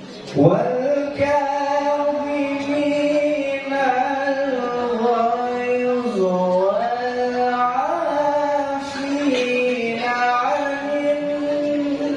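A man's voice reciting the Quran in the melodic tilawah style, amplified through a microphone: long held notes that slowly bend down and back up, starting about half a second in.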